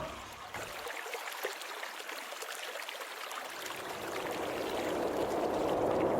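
Running water trickling and gurgling, a steady rush dotted with small splashes.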